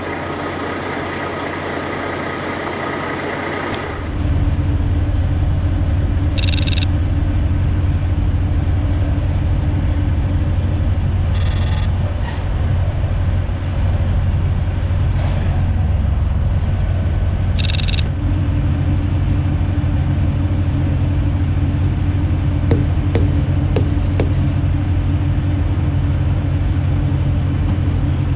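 Heavy diesel truck engines idling: a steady low rumble, which becomes louder after an abrupt change about four seconds in. It is broken three times by short, sharp hisses of air.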